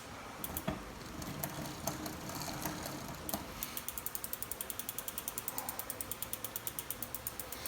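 Mountain bike rear freehub ticking as the rear wheel spins and coasts on the stand. A few scattered clicks from working on the drivetrain come first; from about halfway in, the ticking is rapid and steady.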